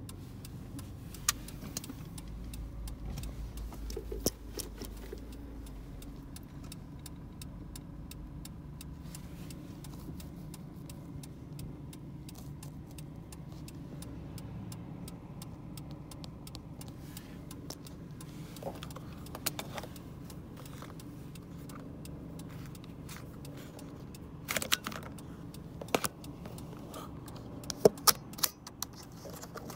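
Car engine running, heard from inside the cabin as a steady low hum, with scattered light clicks and rattles that cluster in the last few seconds.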